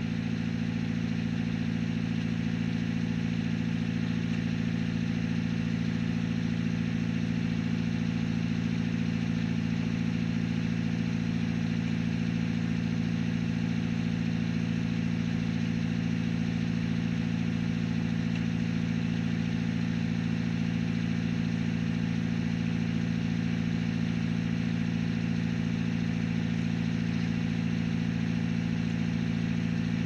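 Washing machine drum spinning at a constant speed, heard from inside the drum: a loud, steady hum with several steady low tones.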